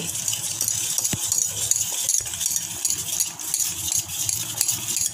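Wire whisk stirring oat flour and water in a steel bowl: a steady, fast rattle and scrape of metal on metal.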